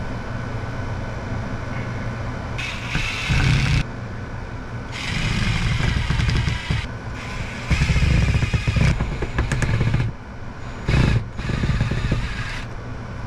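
Power drill driving mounting screws up into the ceiling in several bursts of a second or two, each starting and stopping abruptly, over a steady low hum.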